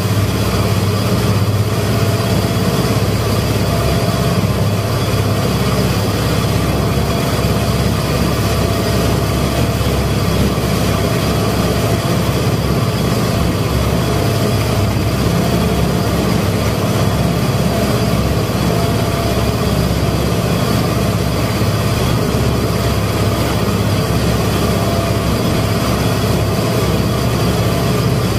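Motorboat engine running steadily under way, a constant low drone mixed with the rush of water and wind from the boat's wake.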